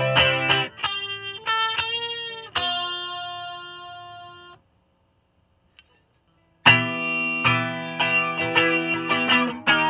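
Cort G300 Pro electric guitar played through a Fender Champion 20 amp: picked single notes with a string bend, then a held note that fades out. After about two seconds of silence the playing starts again.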